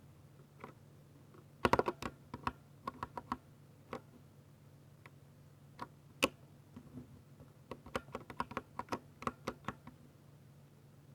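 Ducky 60% mechanical keyboard with Cherry MX Silver linear switches being typed on in irregular bursts of keystrokes. A fast flurry comes about two seconds in, scattered single keystrokes follow with one louder clack about six seconds in, and another run of keystrokes comes near the end.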